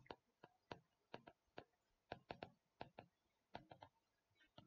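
Faint, irregular clicks and taps of a pen stylus striking a tablet screen while handwriting, about fifteen light ticks spaced unevenly.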